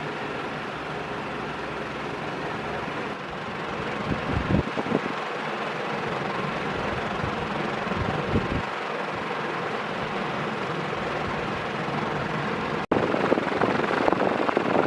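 Jinling FC-30X5 140 cm ceiling fan with five metal blades running on high speed: a steady rush of moving air. Its draft buffets the microphone with low thumps about four seconds in and again about eight seconds in, and the sound breaks off for an instant near the end.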